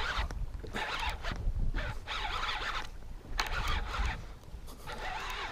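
Shimano Tranx 500HG baitcasting reel being cranked, giving a buzzing whir of the gears as line is wound in, in several short spurts about a second long.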